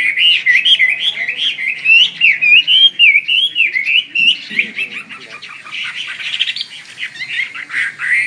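Chinese hwamei (Garrulax canorus) singing a loud, fast, varied song of looping whistled notes that sweep up and down. It eases off somewhat about halfway through and picks up again near the end.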